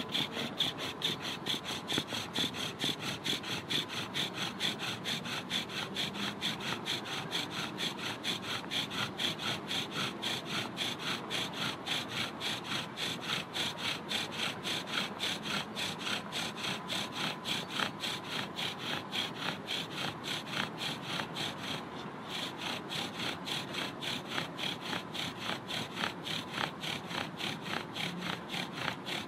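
Bow drill in use: the wooden spindle, spun back and forth by the bow's cord, grinds in its socket in the wooden fireboard with an even, rhythmic rasping squeak on every stroke, briefly breaking off about three quarters of the way through. The hearth is smoking, a sign that the friction is heating the wood toward an ember.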